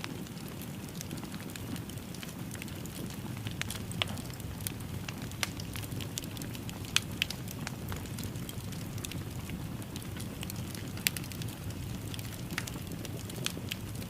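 Wood fire crackling in a fireplace: irregular sharp pops and snaps over a steady low rush of the flames, with the loudest pops about 7 and 11 seconds in.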